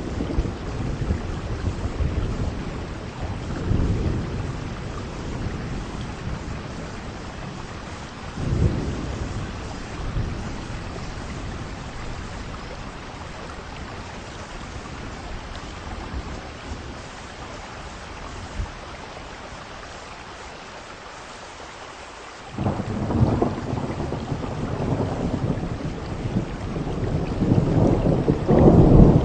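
Heavy rain falling steadily, with rumbles of thunder. A loud thunder roll starts suddenly about three-quarters of the way through and builds toward the end.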